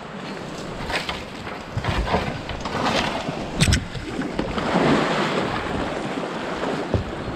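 Plastic whitewater kayak sliding off a brushy bank into the river, with several sharp knocks and splashes in the first few seconds, the strongest a little before halfway. It then moves off with paddle strokes and water washing along the hull, with wind buffeting the microphone.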